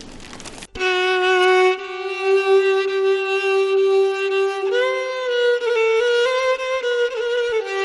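Solo violin bowed in slow, long held notes, starting abruptly under a second in. The melody steps up to a higher note about five seconds in, then moves in small steps near the end.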